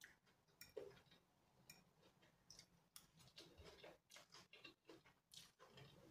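Faint sounds of eating noodles: chewing and slurping, with scattered light clicks of a fork against the plate.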